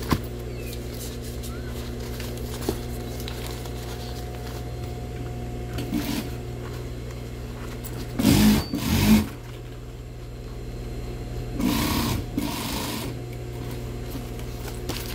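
Juki single-needle industrial sewing machine: its motor hums steadily, with short runs of stitching about eight seconds in and again about twelve seconds in.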